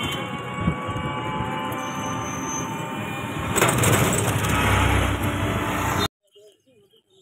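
A passenger rickshaw riding along, heard from inside: a steady running whine over road rumble that grows louder and rougher about three and a half seconds in, then cuts off suddenly about six seconds in.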